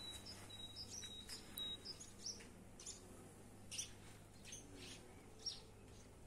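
Small birds chirping faintly. A run of short, even high whistles comes in the first two seconds, then scattered brief chirps.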